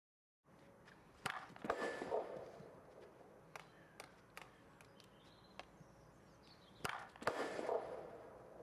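Field hockey stick striking the ball in tomahawk (reverse-edge) hits on artificial turf: two sharp cracks, one about a second in and one about seven seconds in. Each is followed by about a second of scuffing noise, with a few fainter taps and scuffs between them.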